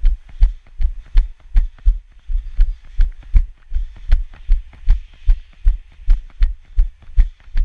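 A runner's footfalls on a dirt trail, picked up through the camera carried on the body as heavy low thuds in a steady running rhythm of about two and a half to three steps a second.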